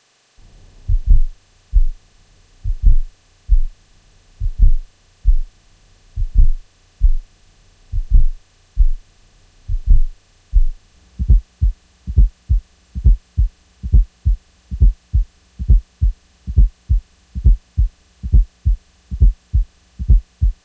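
Heart sounds with an added fourth heart sound (S4 atrial gallop): low thuds in the 'Tennessee' rhythm, a close pair (S4 then S1) followed by S2. They are played slowly at first, then at real heart speed from about halfway through. An S4 is the sign of stiff, non-compliant ventricles forced to fill by atrial contraction, and is never physiological.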